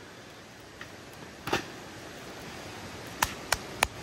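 Hand clapping: three sharp claps about a third of a second apart near the end, the start of a slow, even round of applause. A single knock sounds about halfway through.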